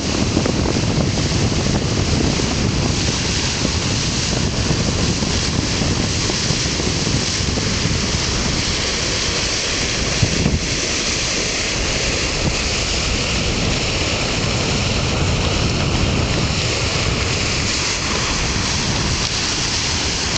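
Steady rush of sea water at the bow of a sailing schooner under way, with wind buffeting the microphone in a continuous low rumble.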